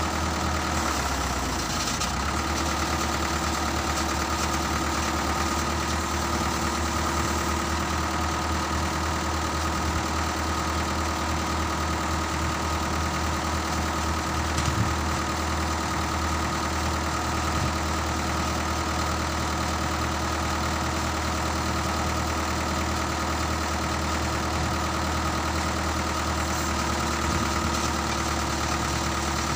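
Diesel engine of a concrete-lifting hoist running steadily at idle, with an even, unchanging hum.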